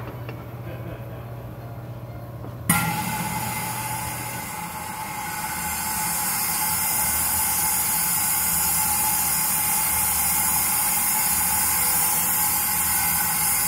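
Hat steamer's jet hissing as a felt hat is steamed to soften it for shaping: the steam comes on suddenly about three seconds in, runs steadily with one faint whistle-like tone inside the hiss, and shuts off sharply near the end.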